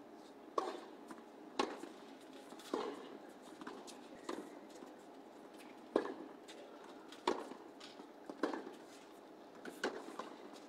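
A tennis ball on a hard court: sharp single pops about once a second as the ball is bounced before the serve, then the serve struck, the loudest pop, about six seconds in, followed by the racket hits and bounces of the rally.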